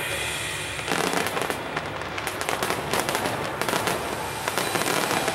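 Fireworks display: a dense, rapid crackle of many small bursts and pops, growing thicker about a second in.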